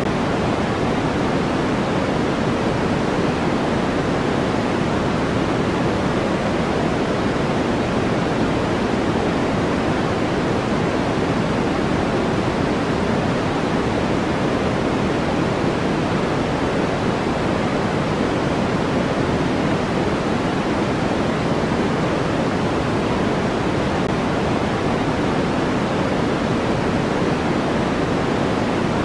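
Steady sleep-aid white noise: an even, unbroken rushing hiss, fuller and deeper than a thin hiss, that does not change at all.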